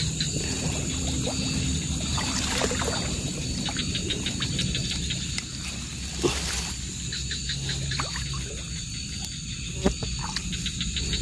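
Night-time chorus of insects calling: a steady high trill, with repeated runs of fast chirps coming and going. Two brief knocks stand out, about six and ten seconds in.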